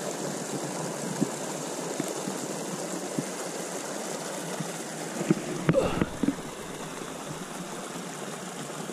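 Steady rush of flowing creek water, with a brief cluster of knocks and thuds about six seconds in.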